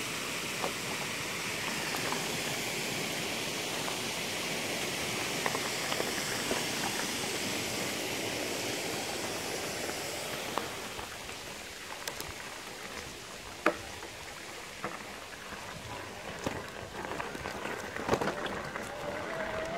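Steady rushing water of small cascades that fades out about halfway through, leaving bicycle tyres on a gravel track with scattered crunches, clicks and knocks.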